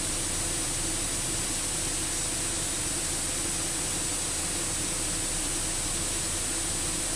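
Steady in-flight cockpit noise of a Cessna 208B Grand Caravan heard through the intercom recording: an even hiss with a low steady drone from the turboprop engine and propeller.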